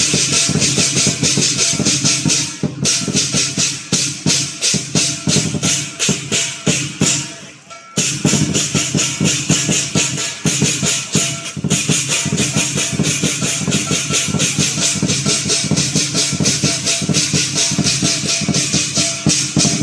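Lion dance percussion playing at a fast, driving beat: a big drum struck in rapid strokes with crashing cymbals. The cymbals thin out about three seconds in, the playing dips briefly near eight seconds, then drum and cymbals come back in full.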